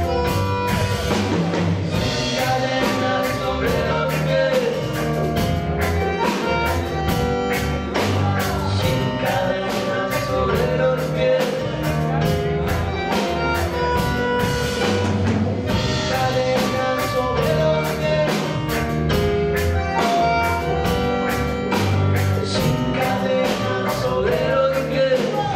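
Tango dub band playing live: a drum kit keeping a steady beat under electric guitar, keyboard and bandoneon, with a man singing at times.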